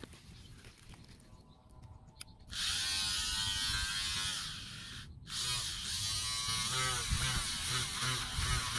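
Small hobby DC motor spinning a plastic propeller in open air, a buzzing whine. It switches on about two and a half seconds in, cuts out for a moment a little past halfway, then runs again with its pitch wavering.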